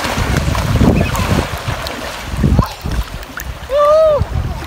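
Shallow river water lapping and splashing right at a phone held at the surface, with a rumble of wind on the microphone. About four seconds in, a voice calls out once, rising then falling in pitch.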